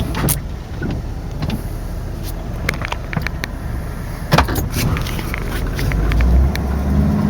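Pickup truck driving slowly, with engine and road noise heard from inside the cab. Scattered light clicks and knocks come through, the sharpest about four and a half seconds in, and a low hum grows louder near the end.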